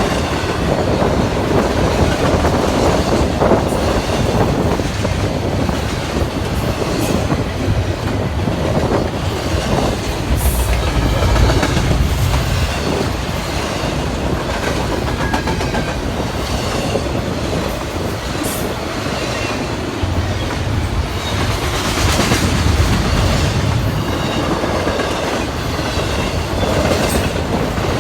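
CSX freight train rolling past, a steady rumble of its wheels on the rails.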